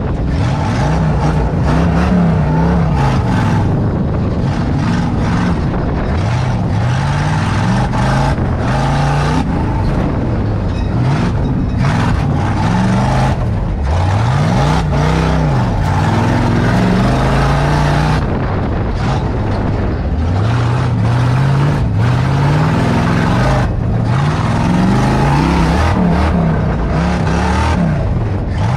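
Tuff truck's engine heard from inside the cab, revving up and dropping back again and again as the throttle is worked. The truck's body and roll cage rattle and bang over bumps.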